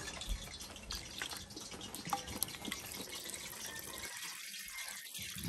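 A thin stream of evaporated milk pouring from a tin into a large pot of hot liquid, a soft steady trickle with small drips and splashes.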